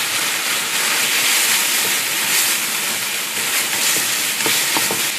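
Minced chicken stir-frying in hot oil in a pan, a steady sizzle.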